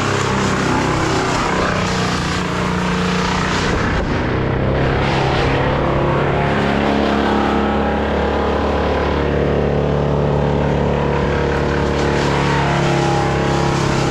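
Stihl 201 two-stroke top-handle chainsaw running at high speed, its pitch dipping and rising every couple of seconds.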